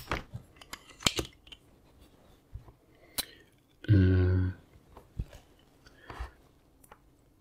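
Spring-loaded solder sucker (desoldering pump) firing with a sharp snap, followed by scattered lighter clicks and taps of tools on the circuit board as solder is cleared from the capacitor holes. About four seconds in, a short low hum lasts under a second.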